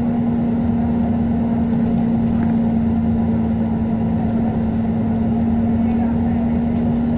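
Engine of a Dennis Trident double-decker bus with an Alexander ALX400 body, refitted so that it sounds like a Trident Enviro400, running steadily while the bus is under way. It is heard from inside the passenger saloon as an even drone over road rumble.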